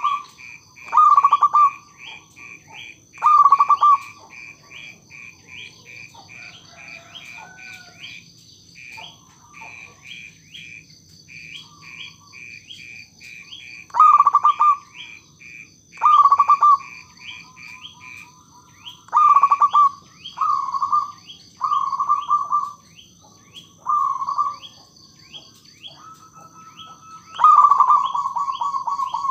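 Zebra dove (perkutut) cooing in short, loud phrases of staccato coos, about ten in all, with a pause of several seconds after the first three. Behind it runs a fast, even series of high chirps, about four a second, over a steady high whine.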